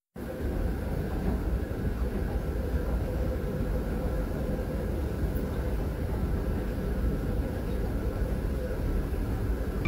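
Steady low rumble of a subway station, with a faint hum running through it.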